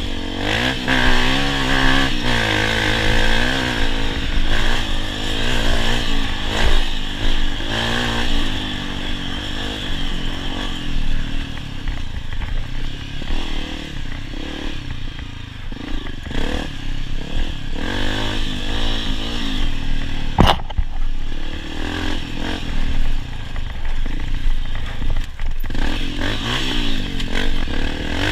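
Honda CRF250F's single-cylinder four-stroke engine revving up and down as the dirt bike is ridden hard over a race trail, its pitch rising and falling again and again. A sharp knock comes about two-thirds of the way through.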